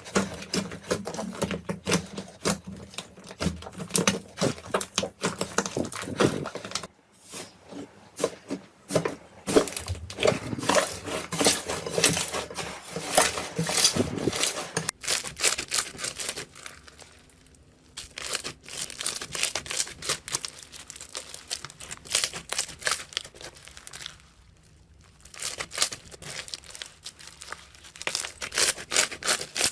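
Slime being squished and stretched by hand: a dense run of crackling, popping clicks, with a few short pauses.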